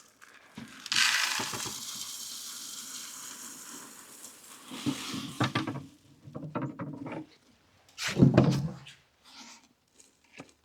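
Bird seed poured from a pail into a wooden hopper feeder: a rushing hiss of falling seed that starts loud about a second in and tapers off over about three seconds. It is followed by scattered knocks and rattles and a louder thud near the end.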